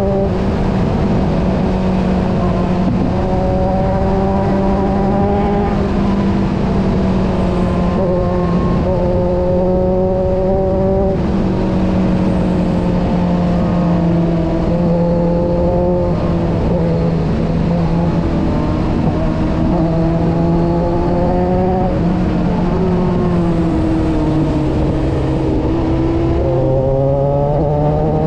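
Kawasaki motorcycle engine running under way, heard from on board, its pitch climbing and then dropping again and again with gear changes and throttle changes through the bends, over a steady rush of wind noise.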